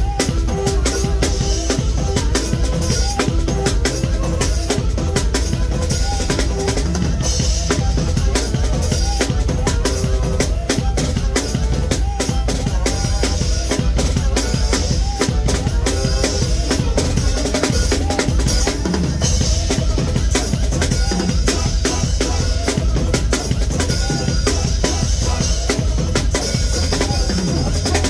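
Drum kit played in a continuous groove: kick drum, snare and rimshots, with cymbal wash, loud and steady throughout.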